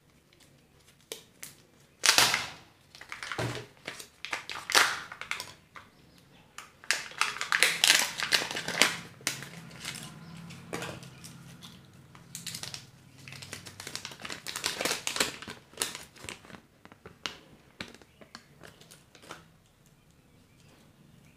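Surprise-egg packaging being handled and opened: plastic and foil wrappers crinkling, with many sharp clicks and snaps of hard plastic, irregular and busiest in the middle.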